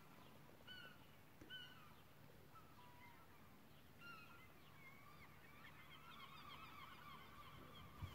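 Faint calls of a flock of birds: short, downward-sliding calls, a few spaced apart at first, then many overlapping from about halfway through.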